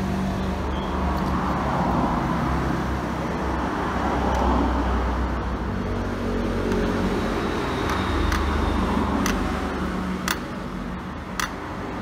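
A steady background rumble and hiss runs throughout. Over it, about four light sharp clicks come in the last few seconds as steel tweezers tap against the laptop's plastic screen bezel.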